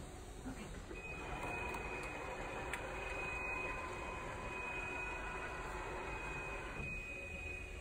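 A small electric motor whirring with a steady high whine. It starts about a second in and stops suddenly near the end, as the BMW Vision Next 100 concept car's retractable steering wheel motors out of the dashboard.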